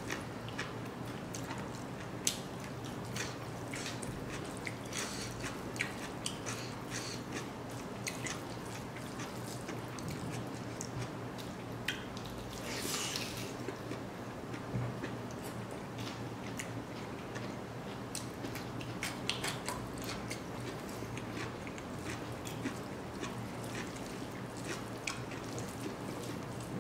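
Close-up mouth sounds of a man eating rice and dry smoked pork with his hand: wet chewing, smacks and small clicks scattered throughout, with one longer hiss about halfway through.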